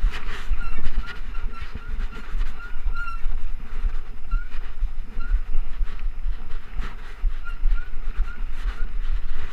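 2013 Trek Rumblefish Pro mountain bike ridden fast over a bumpy dirt singletrack, heard from a chest-mounted camera. Deep wind buffeting on the microphone and a steady rattle of knocks from the bike over the bumps, with short high squeaks that come and go.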